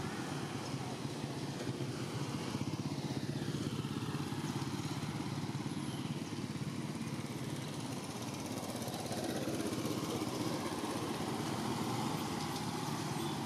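An engine running steadily, its sound swelling a little in the second half.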